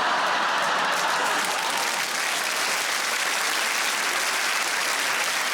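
Studio audience applauding and laughing in response to a stand-up punchline, a steady wash of clapping.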